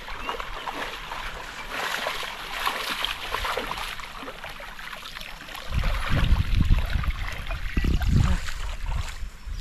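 Shallow muddy water splashing and trickling as hands work a net trap in a flooded paddy channel. From a little past halfway, deep rumbling buffets take over as the loudest sound.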